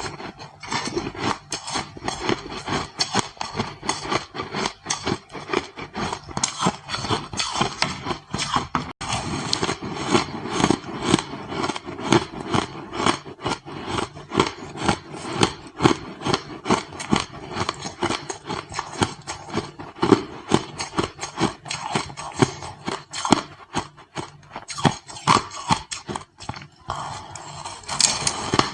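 Ice crunching: a dense, continuous run of crisp crunches and cracks, several a second.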